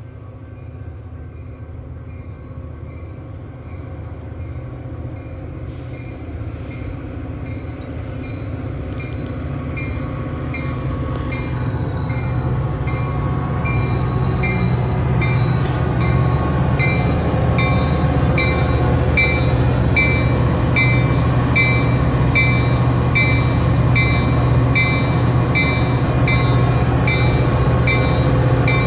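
Metra EMD F40PH-series diesel locomotive approaching with a bi-level commuter train, its engine drone growing steadily louder as it nears. From about six seconds in, a bell rings steadily over it.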